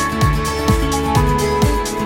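Background music: an electronic track with a steady kick drum at about two beats a second under held synth chords.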